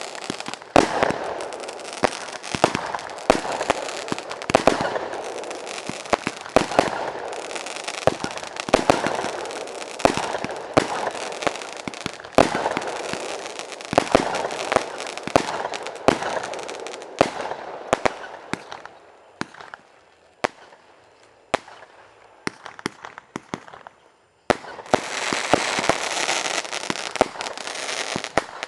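Fireworks display: a fast run of sharp bangs over a haze of crackling. It thins out to scattered bangs about two-thirds of the way through, then a dense, loud crackling starts suddenly near the end.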